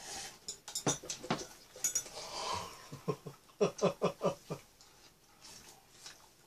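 A small dog giving a quick run of about eight short, falling yelps or whines near the middle, with a few clicks of utensils against dishes before it.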